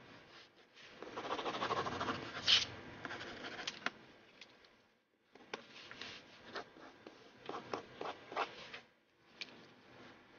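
Drawing strokes scratching across paper: a few seconds of continuous dense scribbling, then a run of short, quick separate strokes.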